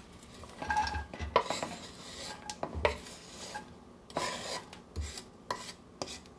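Wooden spatula scraping chopped celery and onion off a wooden cutting board into a Dutch oven: a run of short rasping scrapes with a few sharp knocks among them.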